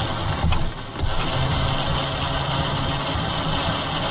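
A 21-foot Crooked Pilothouse boat's engine idling steadily.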